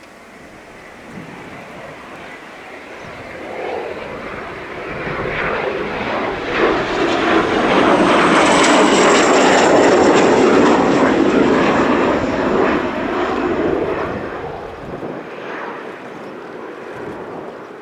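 Military jet aircraft flying past on a touch-and-go circuit: the jet noise builds to a loud peak about halfway through and then fades, with a high whine that falls slightly in pitch as it goes by.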